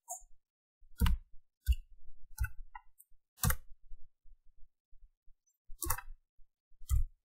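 Computer keyboard keys being typed: about six separate clicks spread out, with fainter taps between.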